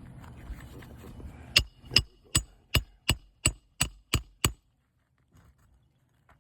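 A hammer driving a roofing nail through an asphalt shingle: eight quick, evenly spaced metallic strikes, about two or three a second, starting about a second and a half in.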